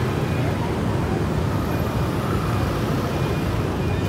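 Steady street traffic noise from motorbike engines running and passing in a narrow lane, a continuous low rumble with no single event standing out.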